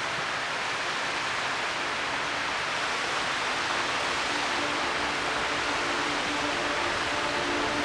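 Steady rush of flowing water. Faint sustained musical notes come in over the last few seconds.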